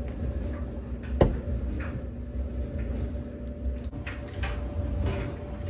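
A single sharp click about a second in, as a wiper-delete plug is pressed into the rear wiper hole of a Honda Civic hatch with pliers, over a low steady hum. After that come a few short, faint sprays from a spray bottle.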